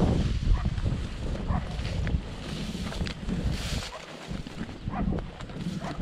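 Wind buffeting the microphone, a rumbling outdoor noise with a few faint knocks and short clicks scattered through it.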